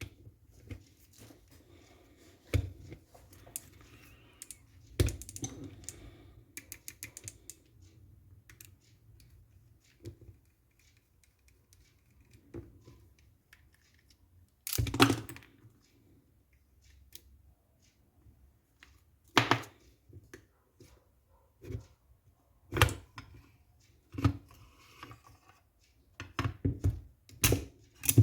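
Scattered clicks, taps and knocks of parts and tools being handled while an airsoft M14 rifle is taken apart, with a few sharper knocks spaced several seconds apart and a quick run of clicks near the end.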